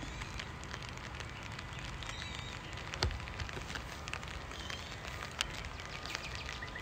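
Steady rain pattering with scattered drop ticks, a sharper tap about three seconds in, and a couple of faint, short bird chirps about two and five seconds in.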